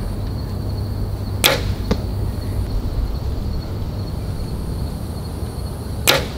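Compound bow shot twice. Each release is a sharp snap of the string. The first is followed about half a second later by a fainter smack as the arrow hits the target at 32 yards. The second shot comes near the end.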